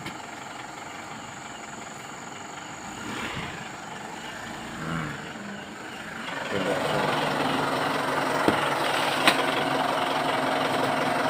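Mitsubishi Pajero engine running quietly, then getting louder about six and a half seconds in as the vehicle is driven forward in gear. It is a test of the propeller shaft after its universal joint was regreased. A couple of short clicks come near the end.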